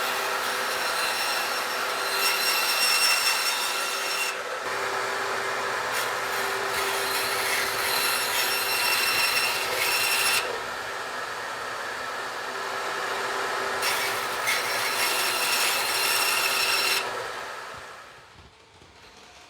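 A power cutting tool running steadily while it cuts through knife handle pins in three stretches of scratchy cutting, then winding down near the end.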